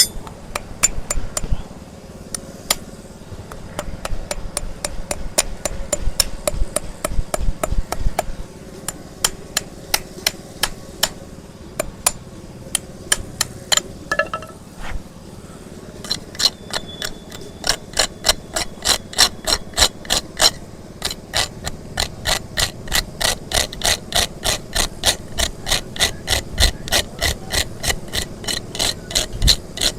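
Hammer tapping on a hoof-trimming tool as a donkey's overgrown hoof is cut back: a long run of sharp metallic strikes, uneven at first with a brief pause about halfway in, then an even rhythm of about three a second.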